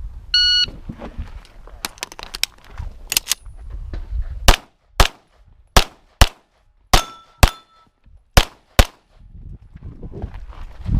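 An electronic shot timer gives its start beep, then a pistol fires a string of about a dozen shots over the next eight seconds. The last several shots are loud and spaced about half a second apart. Two shots near the middle of the string are followed by a brief metallic ring, as from steel targets being hit.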